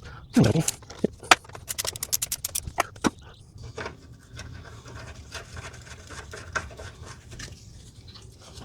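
Hand tools working on metal: a few sharp knocks in the first second, then a quick run of about ten clicks lasting under a second, followed by a faint low hum.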